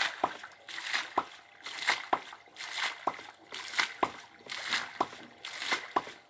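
Water splashing and sloshing in a steady rhythm about once a second, with a short knock on each stroke, as a bore pipe is worked up and down by a bamboo lever to sink a manual tube well.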